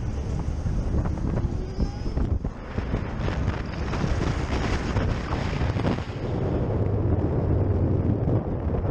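Wind buffeting a helmet-mounted microphone, with road noise, while riding a Zero SR/F electric motorcycle, which adds no engine sound of its own. The wind rush grows heavier from about six seconds in.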